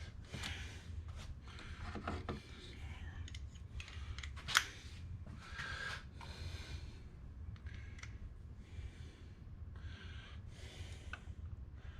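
Hands working metal engine parts and bolts: scattered rubbing and scraping with light clicks, one sharper click about four and a half seconds in.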